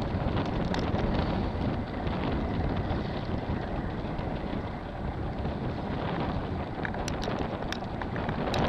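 Wind buffeting the microphone on a small boat at sea, a steady, low, rushing noise with no engine note.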